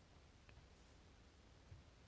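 Near silence: room tone, with one faint tick about half a second in from steel tweezers handling a tiny lock pin.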